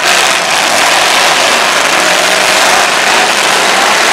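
Several demolition derby cars' engines running hard as the cars push against each other in the mud, a dense, steady din.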